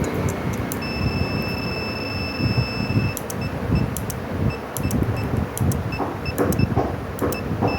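Bike alarm unit's buzzer sounding one steady high beep for about two seconds, then a few short beeps of the same pitch, over handling rustle and small clicks.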